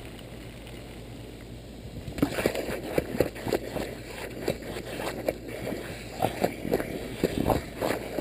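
A bulldog plays in a lawn sprinkler's spray close to the microphone. About two seconds in, irregular splashes, snuffles and knocks begin and keep going.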